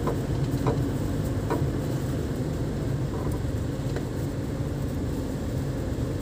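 A vehicle running along a road, heard from inside: a steady low engine and road rumble, with a few short light knocks.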